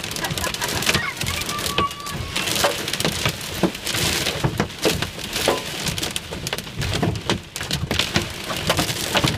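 Hail and heavy rain hitting the car's roof and windshield, heard from inside the cabin: a dense, irregular clatter of sharp impacts over a steady rain hiss.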